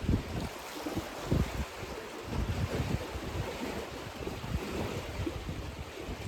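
Lake waves splashing against the shore in a steady wash, with gusty wind buffeting the microphone in irregular low rumbles.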